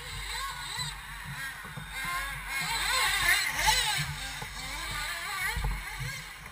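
Several 1/8-scale RC buggies racing, their motors rising and falling in pitch as they speed up and slow down around the track, with the loudest run-up about three to four seconds in.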